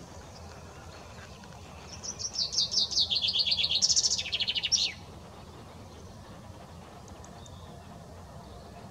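Common chaffinch singing one song, starting about two seconds in: a rapid trill of repeated notes falling in pitch, then a second run of notes, ending in a short downward flourish, about three seconds in all. Faint steady background noise underneath.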